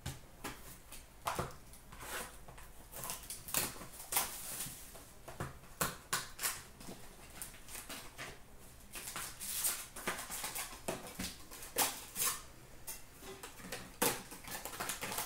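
Upper Deck hockey card packs being torn open and their foil wrappers crinkled, with cards handled in between: a continuous run of irregular crackles and rustles.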